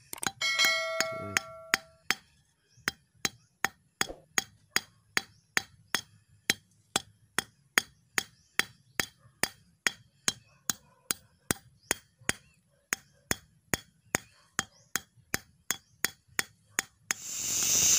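Hammer tapping a thin steel speargun rod flat against a steel plate used as an anvil: one ringing strike near the start, then a long run of light, even taps, about three a second. An angle grinder starts up about a second before the end.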